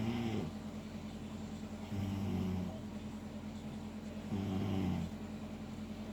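Snoring: short, buzzing snores repeating about every two and a half seconds, three of them, over a steady low hum.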